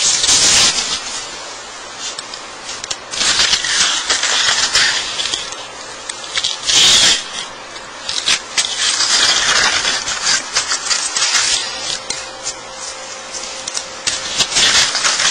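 Hobby knife blade scratching through a thin sheet of wood veneer as it is cut along a line, in a run of scratchy strokes, some brief and some a few seconds long, with pauses between.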